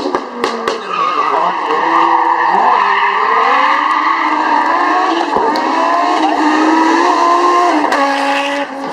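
Rally car engine running hard at high revs, its pitch dipping and climbing with gear changes and throttle, with a few sharp cracks.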